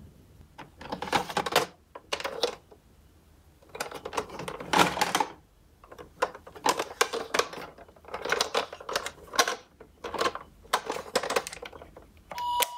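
Hard plastic toy ambulances being handled in a cardboard box, with irregular clattering and rattling. Near the end a roof button on the toy is pressed and its electronic siren starts with alternating tones.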